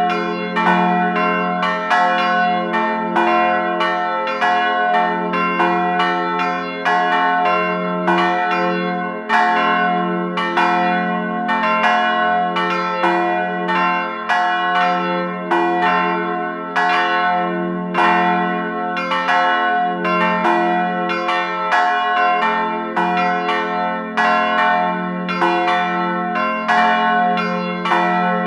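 Bells ringing in a continuous, even peal, struck about twice a second, each strike ringing on into the next.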